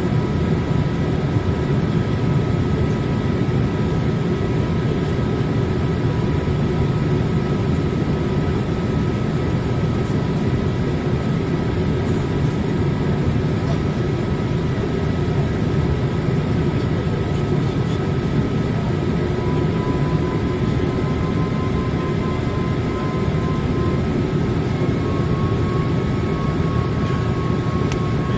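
Cabin noise inside a Boeing 787-8 Dreamliner in flight: a steady rumble of engines and airflow with thin, steady engine whine tones, one of which shifts up slightly about two-thirds of the way through.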